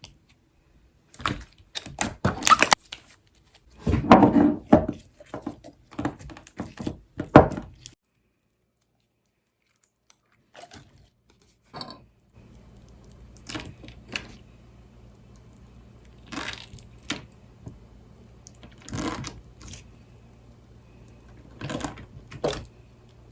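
Slime being squeezed and pressed by hand, giving bursts of sticky crackling and clicking pops. It stops dead about eight seconds in, then resumes a few seconds later more softly and sparsely over a low hum.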